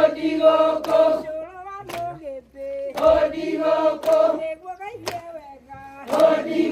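A group of women singing together in a chant-like song and clapping their hands to the beat. Loud full phrases come about every three seconds, with quieter singing between them, and a clap about once a second.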